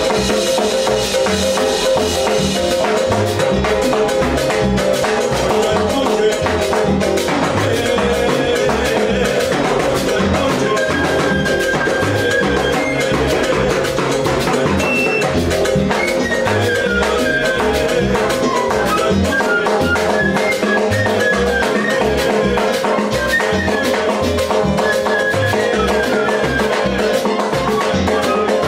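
Live salsa timbales solo: sticks striking the metal-shelled timbales and a mounted block in quick, dense patterns over the band's steady rhythm. A melodic line rises and falls over it in the second half.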